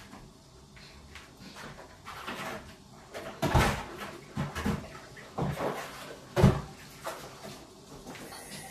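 Kitchen handling noises: a scattering of short knocks and bumps in the second half, the sharpest about six and a half seconds in, as of cupboards and cookware being moved about.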